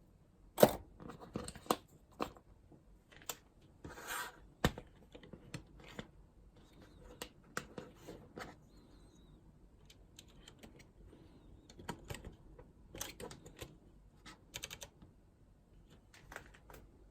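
Scattered light clicks and taps of small plastic keycaps being handled, irregular and spread through, with a short rustle about four seconds in.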